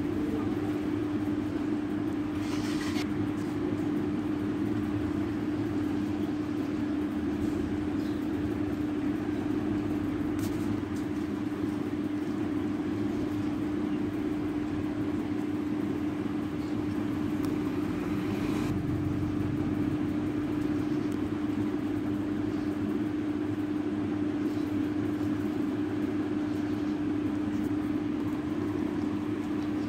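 A steady low hum with one constant tone over a background hiss, with two brief rustles about three seconds in and about nineteen seconds in.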